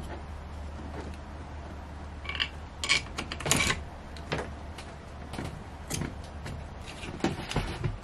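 Irregular metallic clinks and knocks of a socket and bolts being handled and fitted on a diesel engine, metal on metal. The loudest is a quick run of ringing clinks about two to four seconds in, with lighter taps after.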